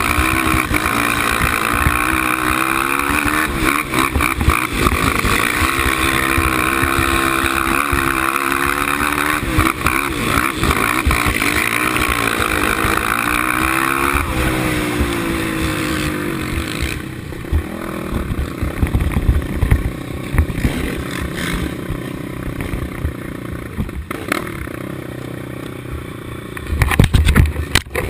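Suzuki LTR 450 race quad's single-cylinder four-stroke engine revving up and down under hard riding on a dirt flat track, heard from the machine with wind on the microphone. About two-thirds through, the high engine note falls away to a lower, rougher running with scattered knocks and clatter. There are a few loud thumps near the end.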